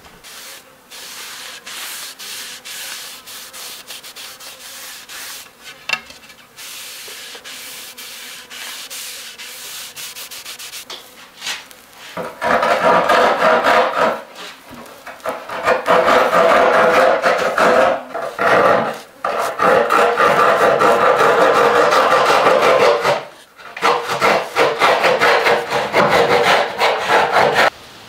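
A hand rubs a grey pad over a carved hackberry wood bow limb, smoothing the wood. For about the first twelve seconds the strokes are light and quick. After that comes louder rubbing in long back-and-forth passes with short pauses between them.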